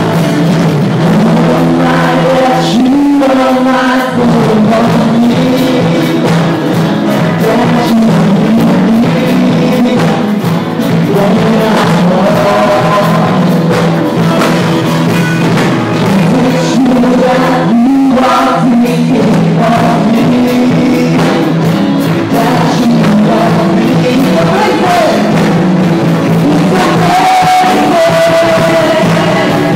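Live worship band playing a song: singers over electric guitars and band backing, loud and continuous.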